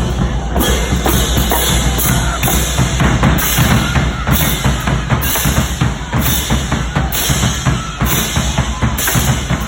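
Loud music driven by drums: bass drum, snare and bright cymbal-like hits keeping a steady beat.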